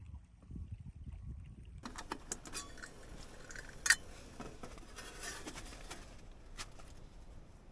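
Close handling noise: crunching and rustling with small clicks and clinks, and one sharp clink about four seconds in.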